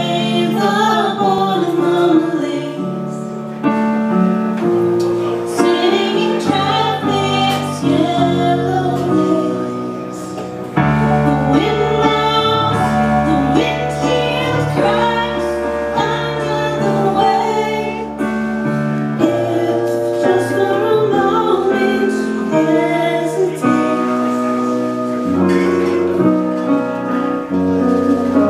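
A live band plays a song, with held keyboard chords under a sung vocal line. About eleven seconds in, deeper bass notes join and the music gets louder.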